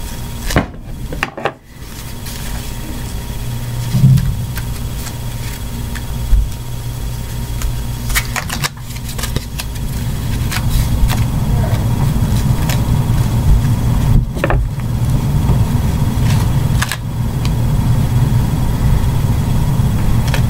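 Black duct tape being pulled off the roll and handled against cardboard, with a few short, sharp rips about 8, 14 and 17 seconds in. Under it runs a steady low hum.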